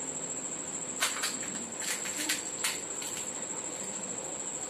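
Crisp cracks and crunches of hollow fried fuchka (panipuri) shells being broken open and bitten: a handful of sharp crackles from about one to nearly three seconds in. A steady high-pitched whine runs underneath.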